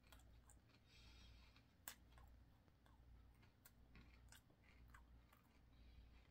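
Faint chewing of a mouthful of dry whole-grain flake cereal with flaxseed: scattered soft crunches and clicks over a low steady hum.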